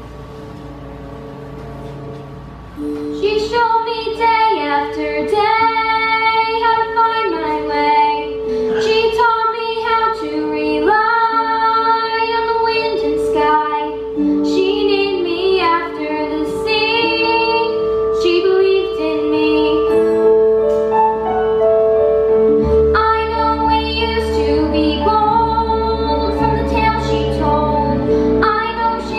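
Music: a female voice sings a melody over a long held note of accompaniment, starting about three seconds in after a quieter lead-in. A deep bass comes in about three-quarters of the way through.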